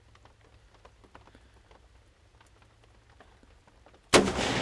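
Light rain pattering, then about four seconds in a single shot from a Browning BAR Mk3 semi-automatic rifle in .308 Winchester, its report rolling away slowly.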